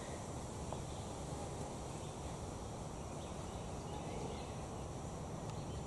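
Steady outdoor background noise: a low rumble and a faint high hiss, with no distinct event.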